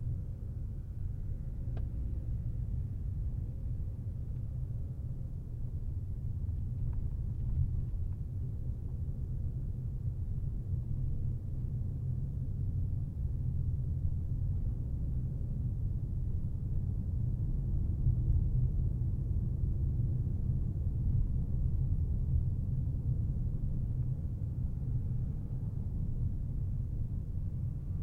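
A car driving along: a steady low rumble of tyres and engine, a little louder about two-thirds of the way through.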